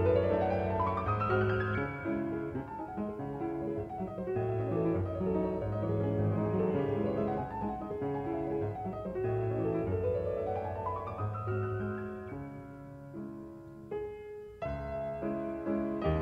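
Solo piano music playing, with two rising runs of notes, about a second in and again about ten seconds in, and a short quieter pause near the end before it goes on.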